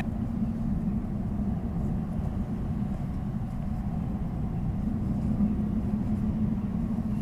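Motorcycle engine idling with a steady low hum.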